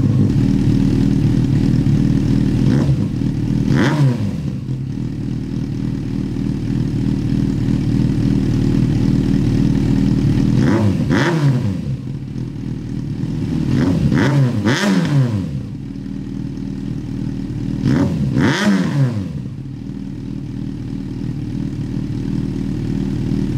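2007 Yamaha FZ6's 600 cc inline-four engine, breathing through a homemade exhaust of two glasspack mufflers, idling just after a cold start. Several short throttle blips rise and fall back to idle, none going past about 5,000 rpm.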